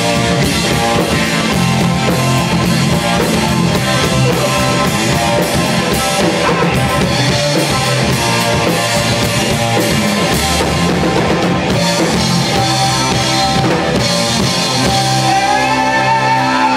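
Live rock band playing loud: DW drum kit and electric bass, with guitar. Gliding high notes come in near the end.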